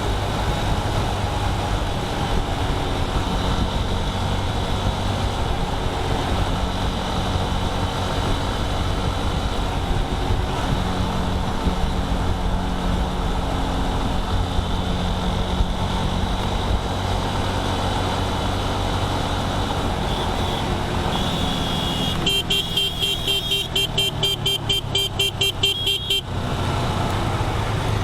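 Vehicle driving in highway traffic: steady engine and road noise. About 22 seconds in, a vehicle horn sounds in rapid short beeps, about five a second, for some four seconds.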